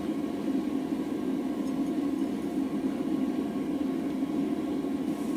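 Gas forge burner running steadily: an even, low rushing sound that does not change.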